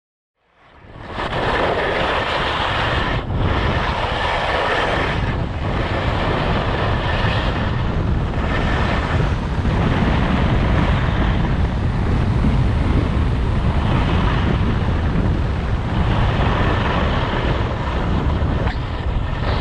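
Wind rushing over the microphone and skis sliding on snow during a ski run: a steady rush with a low rumble, starting about half a second in.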